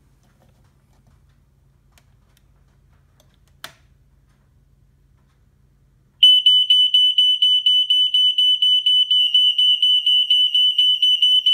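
A sharp click, then a ceiling smoke alarm sounding under its test button. From about six seconds in it gives a loud, high-pitched, rapid beeping that keeps an even pace.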